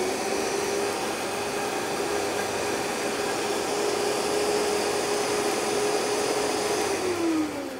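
Countertop blender motor running steadily on high, its blades churning hemp hearts and water into hemp cream. Near the end the motor winds down, its pitch falling.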